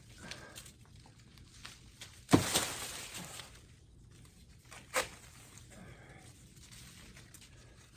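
A sudden loud rustling tear of dry corn plant leaves or husk about two seconds in, fading over about a second, then a sharp snap a few seconds later. Faint bleating in the background.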